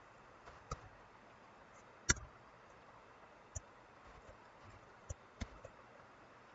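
Faint, sparse clicks of computer input as figures are entered into a calculator: about six separate clicks, the sharpest about two seconds in, over a low steady hiss.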